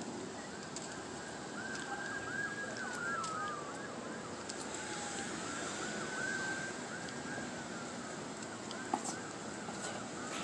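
Distant emergency-vehicle siren, mostly a fast yelp of short rising-and-falling sweeps repeating several times a second, with one slower falling wail about three seconds in, over steady outdoor background noise.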